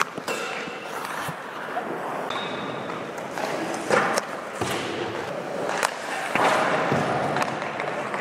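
Ice hockey skate blades scraping and carving on rink ice during a practice, with sharp knocks of sticks and pucks, the loudest about four seconds in.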